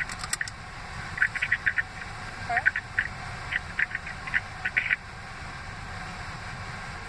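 Steady road and engine noise inside a moving car, overlaid for the first five seconds by irregular runs of short, high-pitched chirps that then stop.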